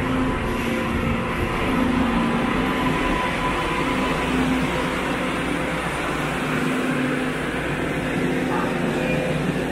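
MBTA Green Line Type 8 light-rail train pulling into an underground station and standing at the platform: a steady rumble and hum of the car's running gear and equipment, with a low held tone throughout.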